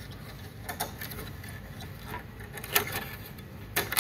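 Handling noise from a thin fiber cable being pressed into the plastic clips and guides of a plastic fiber distribution box: a few sharp plastic clicks and taps, the loudest two in the second half about a second apart.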